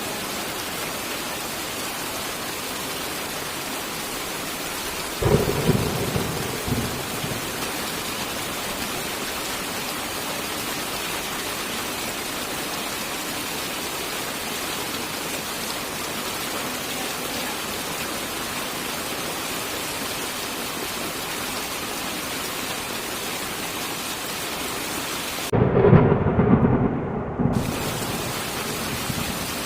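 Steady heavy rain with two sudden thunderclaps rumbling for a couple of seconds each, one about five seconds in and a louder one near the end, during which the rain's high hiss briefly drops out.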